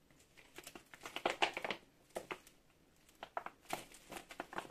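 Clear plastic packaging crinkling and rustling in irregular bursts as it is handled around a dropper seatpost, loudest about a second in and again near the end.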